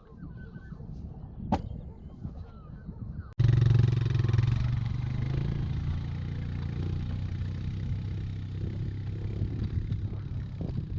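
A quad bike engine running steadily, starting abruptly about three seconds in after a faint low rumble with a sharp click.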